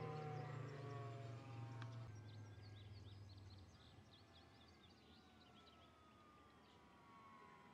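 Faint whine of a model airplane's 160-watt electric outrunner motor in flight, its pitch sliding slowly down as the plane moves off. A low steady hum sounds for the first three seconds or so, and short high chirps come and go.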